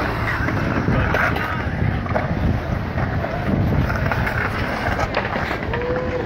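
Skateboard wheels rolling over the concrete bowls of a skatepark, with a few sharp knocks from the boards, wind buffeting the microphone, and onlookers' voices.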